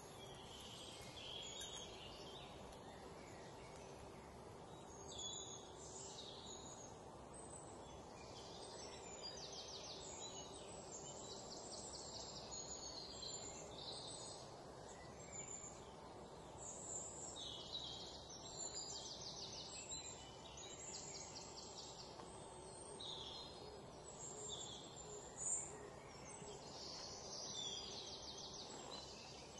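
Faint birdsong: many short chirps and quick trills, one sharper call about three-quarters of the way through, over a steady low hum.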